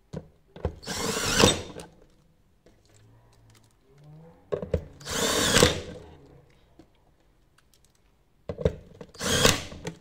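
Cordless drill/driver driving 4.3 x 25 mm screws through a steel flag hinge plate into a uPVC door sash. There are three short runs of about a second each, a few seconds apart, with small clicks of handling between them.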